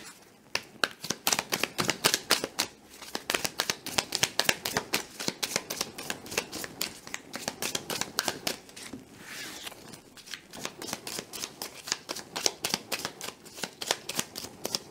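A deck of divination cards being shuffled by hand: a quick run of card flicks and slaps, several a second, with a softer sliding stretch about nine seconds in.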